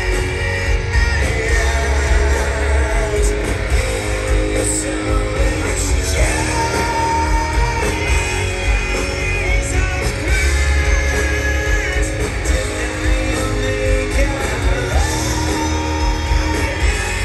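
Live hard rock band playing at full volume, heard from within the crowd: distorted electric guitar, bass and drums with sung vocals over them.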